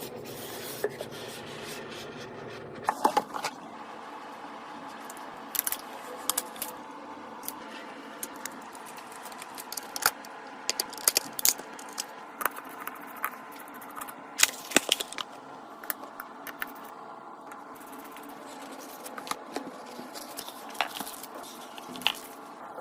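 Irregular clicks, taps and short scrapes of computer hardware being handled during a PC build, over a steady background hum.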